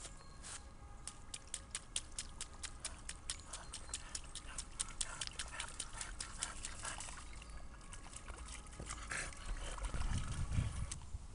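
A French Bulldog's paws splashing quickly through a shallow rainwater puddle on grass, about five quick splashy steps a second. Near the end the splashing fades and a louder low rumble takes over as the dog comes close.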